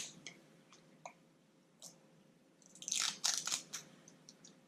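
Small handling noises from the slime's packaging: a few light clicks, then about a second of crinkly rustling and crackling near the middle, as the tin and its wrapping are picked up and handled.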